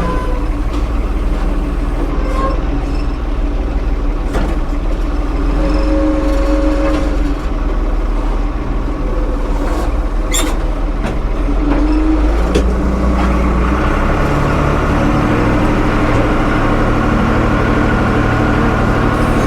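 Tractor engine running steadily under work, its note changing about twelve seconds in, with a sharp click about ten seconds in.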